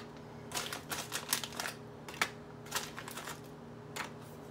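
Cookies being taken from their package and set down one at a time on a small silver tray: a scattering of irregular light clicks and short rustles.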